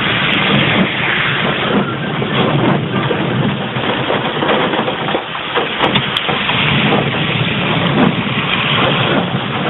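Heavy rain falling hard on a car's roof and windshield, heard from inside the moving car, mixed with engine and wet-road tyre noise. A steady, even hiss.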